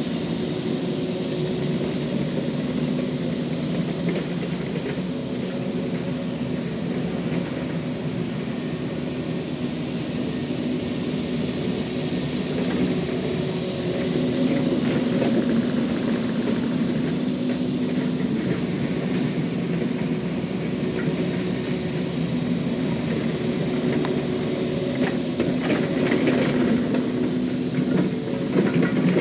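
Yanmar mini excavator's diesel engine running steadily under hydraulic load as the machine works, with a few clanks near the end.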